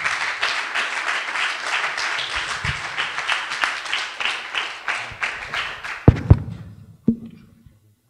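Audience applauding, a dense patter of many hands that dies away about six and a half seconds in. Near the end come two loud low thumps and a softer one a moment later.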